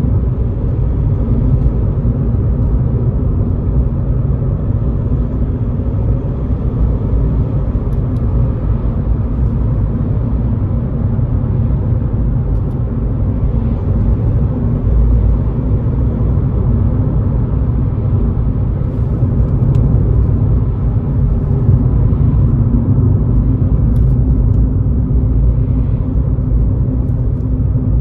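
Inside the cabin of a 2011 Skoda Fabia 1.6 TDI on the move: the four-cylinder turbo diesel runs at a steady cruise under a continuous rumble of tyre and road noise.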